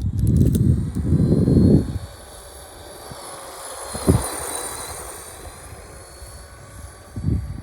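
Electric RC car's motor whining as it drives, the pitch drifting up and down. A loud low rumble fills the first two seconds, and there is a single knock about four seconds in.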